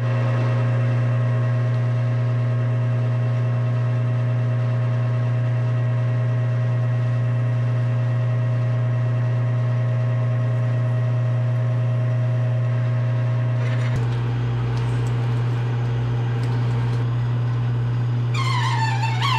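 Manual metal lathe running with a steady loud hum as its spindle turns aluminum stock while a drill in the tailstock bores through it. About 14 s in the sound changes, and near the end a high whine slides down in pitch.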